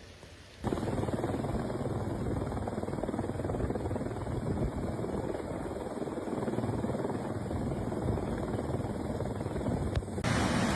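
Helicopter rotor and engine noise, a steady loud din that starts abruptly about a second in and cuts off just before the end.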